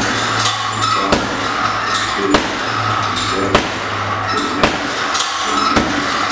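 Boxing gloves striking a heavy punching bag, a sharp hit about once a second, over background music.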